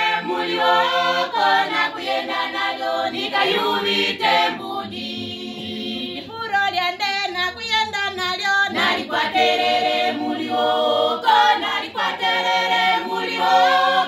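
Youth choir singing unaccompanied in close harmony, mostly girls' voices. In the middle the sound thins to one wavering voice for a few seconds before the full choir comes back in.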